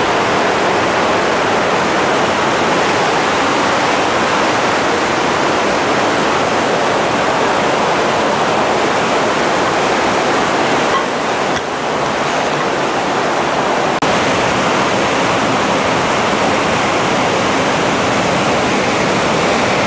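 Fast mountain river, the upper Ganges, rushing loudly and steadily over rocks.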